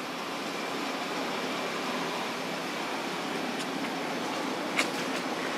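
Steady outdoor background hiss, with a single sharp click about five seconds in.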